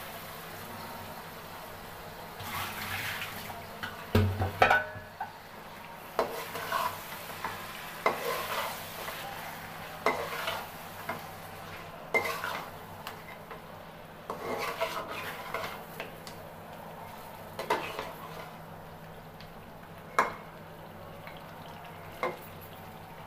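Metal spatula scraping and knocking against a metal pan while fish pieces are stirred and turned in masala, in irregular strokes every second or two, loudest about four seconds in. A light frying sizzle runs underneath.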